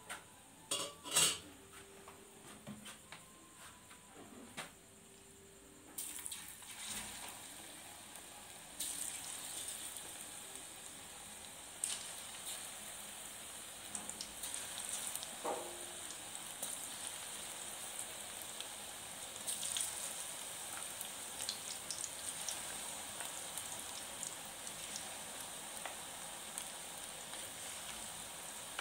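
A few clinks of a metal utensil against the metal karahi, then from about six seconds in, pakora batter sizzling and bubbling steadily as it deep-fries in hot oil, with an occasional clink.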